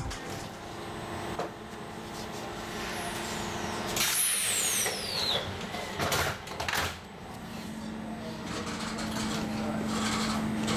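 Tram sounds: a hiss of air with a steeply falling high whine about four seconds in, then a few knocks. A steady low electric hum builds toward the end.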